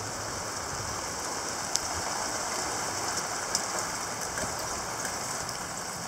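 Strong cold-front wind blowing dust and sand, a steady rushing noise with a couple of sharp ticks. The gusts are estimated at over 60 km/h.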